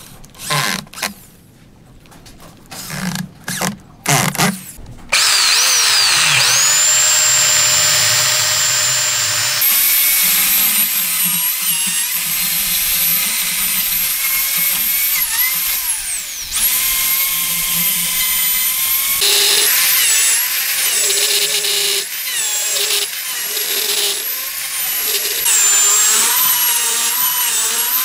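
A power drill runs in several short bursts, driving screws into wooden braces on a slab. About five seconds in, an electric chainsaw starts running and cutting through wood, its steady motor whine dipping in pitch now and then.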